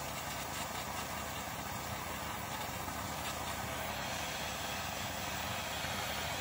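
Handheld hose-fed blowtorch burning with a steady, unchanging rushing hiss as its blue flame heats a titanium razor handle for heat anodizing.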